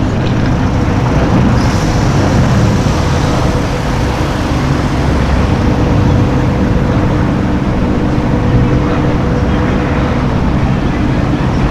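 Car engines running steadily in street traffic, a constant rumble with a steady hum held throughout and no revving.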